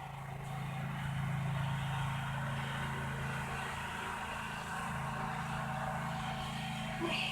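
A motor running steadily with a low, even hum, starting suddenly and holding level throughout.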